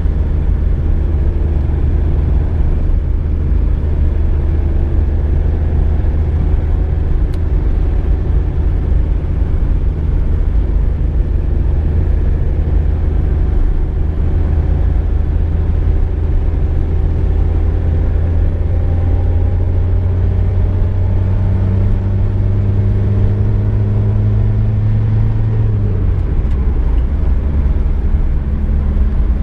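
Car engine and road noise while driving: a steady low hum whose pitch slowly climbs, then drops suddenly near the end.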